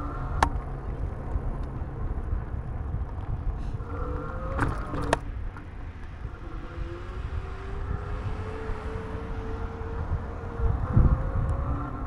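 An electric fatbike's motor whines while riding, its pitch gliding slowly upward as the bike gathers speed. It sits over a steady low rumble of wind on the microphone, with a few sharp clicks and a heavier low gust near the end.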